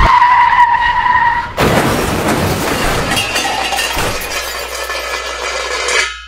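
Car-crash sound effect: a tyre screech that breaks off about a second and a half in into a crash and glass shattering, the pieces jingling on until the sound cuts off abruptly near the end.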